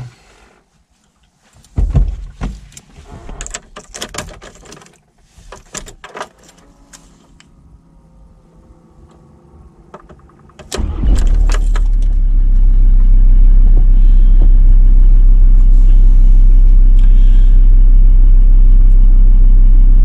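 Keys jangling and scattered clicks and knocks inside a van, then about eleven seconds in the van's engine starts and settles into a steady, loud idling rumble heard from inside the cabin.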